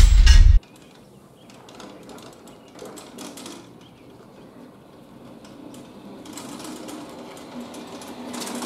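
A loud intro sound cuts off abruptly about half a second in. Then a Cub Cadet XT1 riding lawn tractor is pushed by hand across asphalt with its engine off: faint wheel rolling, light mechanical clicking and footsteps, growing louder as it comes closer.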